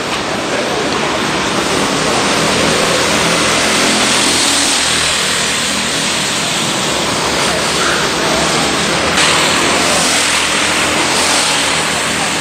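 Racing kart engines running as karts pass on the circuit, heard under a loud, even rush of noise.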